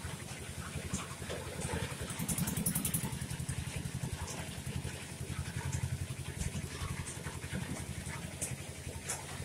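An engine idling with a steady, rapid low putter.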